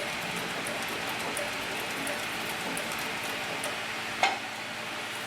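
Cowboy CB 3500 heavy-duty compound-feed leather sewing machine stitching in reverse, with a light tick about three times a second from the stitching, then a single louder knock about four seconds in.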